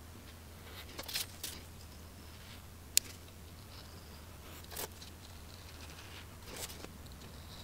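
Craft knife slicing through printed card stock on a cutting mat in a few brief scratchy strokes, with one sharp click about three seconds in. A low steady hum runs underneath.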